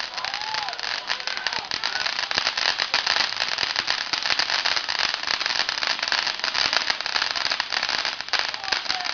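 Fireworks crackling: a dense, continuous run of rapid small pops, like crackling stars bursting overhead.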